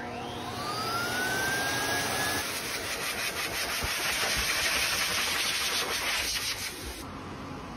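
Forced-air dog grooming dryer switched on: its motor whine rises in pitch as it spins up over the first two seconds or so, under a loud rush of air as the cone nozzle blows over a wet puppy's coat. The rush stops abruptly about seven seconds in.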